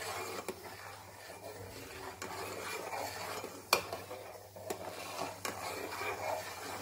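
A ladle stirring and scraping through milk in a metal pot as the milk is boiled down. A few sharp clinks sound where the ladle knocks the pot, the loudest about three and a half seconds in.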